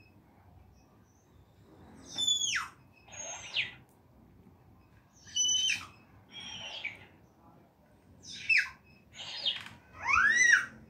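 A baby's short squeals traded back and forth with a talking plush hamster toy that echoes them in a squeaky, sped-up voice. There are about seven high-pitched chirping calls, roughly in pairs a second apart, starting about two seconds in and growing louder near the end.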